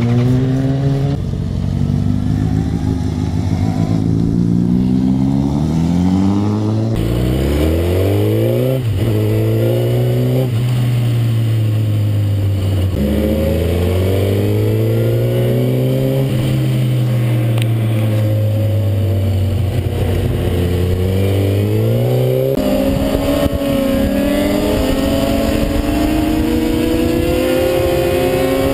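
Suzuki GSX-R sport bike's inline-four engine heard from onboard, revving up hard with its pitch dropping at each upshift and climbing again. Heavy wind rush at speed fills the later part.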